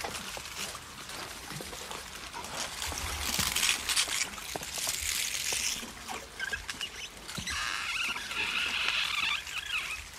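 An African elephant feeding in the rain: leaves and branches rustling and crackling over a steady patter of rain, with louder bursts of rustling about three seconds in and again near the end.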